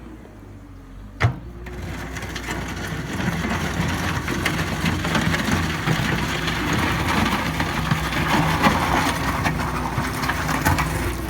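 Cat 906H2 compact wheel loader's diesel engine running steadily. There is a sharp knock about a second in, then from about two seconds in a dense gritty crunching and scraping as the bucket works through soil or gravel.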